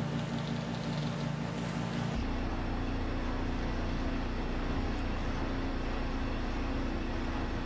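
Steady drone of automated concrete-pipe-making machinery. About two seconds in it changes abruptly to a deeper, steadier hum with a held tone.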